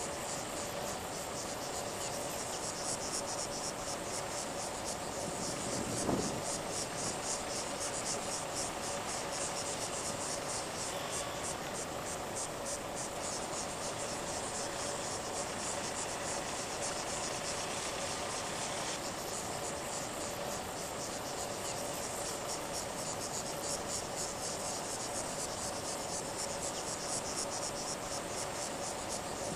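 Insects chirring in a fast, even, high-pitched pulsing trill, with a steady faint hum underneath and a brief low thump about six seconds in.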